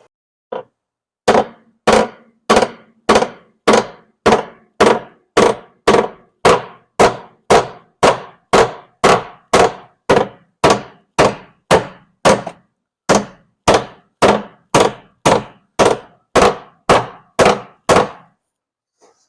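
Hammer blows on the steel of a car's floor-pan jacking point, a steady run of about thirty strikes at a little under two a second, each ringing briefly. The heated crease is being beaten back down flat.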